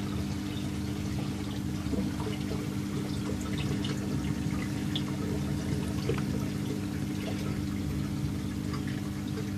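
Reef aquarium water circulating: splashing and trickling with scattered small drips, over a steady low hum.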